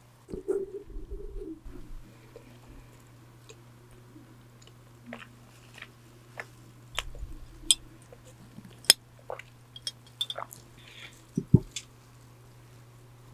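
Close-miked eating: biting and chewing a donut, with wet mouth clicks and the crinkle of disposable plastic gloves, over the steady hum of an electric fan. The chewing is densest in the first two seconds, followed by scattered sharp clicks and a louder thump near the end.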